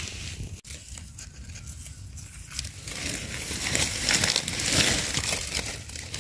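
Dry fallen leaves crunching and rustling as they are stepped on and pushed aside. The sound builds about halfway through, is loudest a little later and eases near the end.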